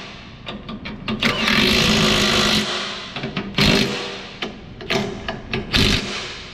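Impact wrench running bolts in: one run of about a second and a half, then short sharp bursts near the end as bolts are snugged down.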